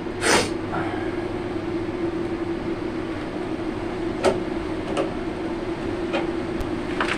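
A steady electrical hum, with a short hiss just after the start and a few light clicks and taps later on, made while wiring is handled and connected.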